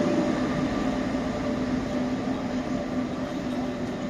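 Class 182 electric locomotive hauling double-deck regional coaches pulling away, its steady traction hum and rolling noise fading as the train leaves.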